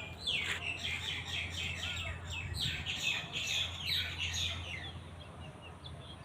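Birds chirping: a quick run of many short, falling chirps over the first five seconds or so, then fading.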